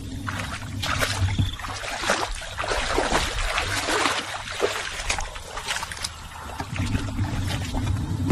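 Shallow water being splashed and stirred: a run of irregular small splashes and trickles.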